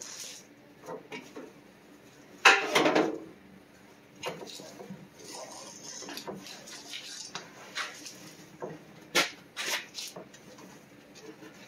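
Irregular knocks and clatters of hard objects being handled, with a louder clatter about two and a half seconds in and a few sharp clicks near the end.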